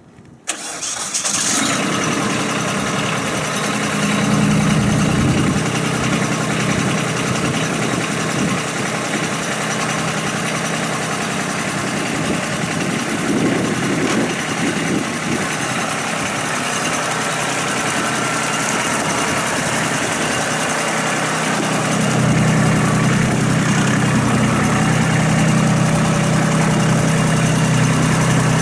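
Kubota B26 compact tractor's diesel engine catching about half a second in, then running steadily as the tractor moves. It gets louder, with a stronger low engine note, from about 22 seconds in.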